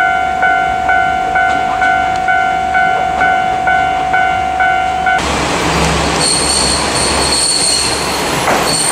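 An electronic warning bell rings about twice a second and stops suddenly about five seconds in. A KiHa 40 diesel railcar then comes alongside with its engine running, wheel noise, and a high brake squeal as it slows.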